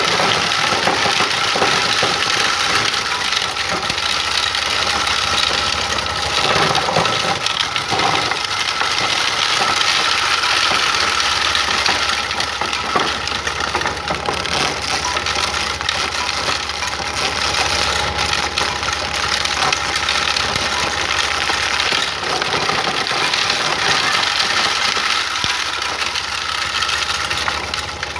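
Homemade wooden motor-driven corn sheller running. Its spinning shelling roller gives a continuous machine noise with a steady hum and scattered clicks and rattles.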